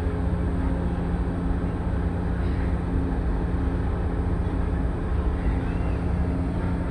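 Ship's engine running with a steady low drone and hum while the ship berths.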